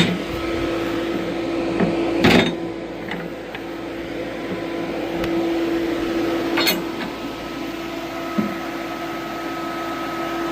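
Battery-wired electric cooling fans running steadily with a constant hum. Two sharp knocks come about two seconds in and again about six and a half seconds in.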